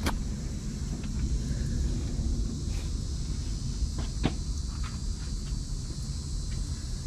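Outdoor background: insects buzzing steadily under a low rumble, with a sharp click at the start and another about four seconds in.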